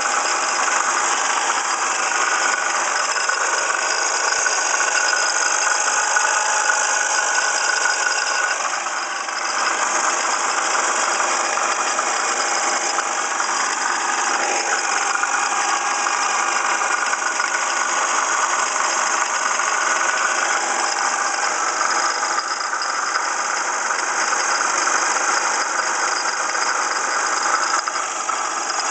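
1995 Ford Escort engine running steadily with a rattle from the passenger side of the engine, which the owner traced to a water pump pulley damaged in a fender accident.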